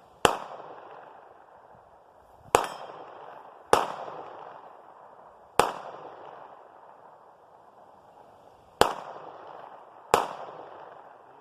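Six shots from a Glock 48 9mm pistol, fired singly at uneven gaps of about one to three seconds. Each is a sharp crack followed by a short fading echo.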